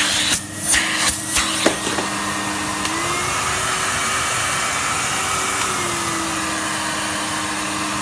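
Numatic Henry HVR200-22 vacuum cleaner running on its replacement twin-flow motor, working after the swap, with a steady motor whine and airflow. A few knocks come in the first couple of seconds. The motor pitch rises about three seconds in and settles back down a little before six seconds.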